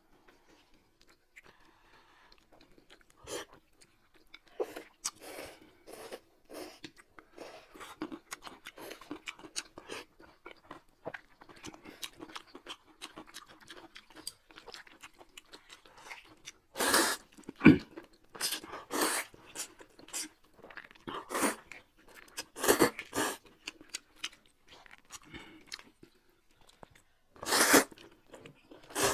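Close-up eating sounds: wet chewing and crunching with many small clicks, then several loud slurps of buckwheat noodles in the second half.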